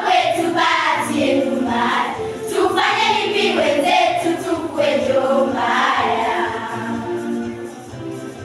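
A primary school girls' choir singing together, accompanied by an electronic keyboard; the singing eases off somewhat near the end.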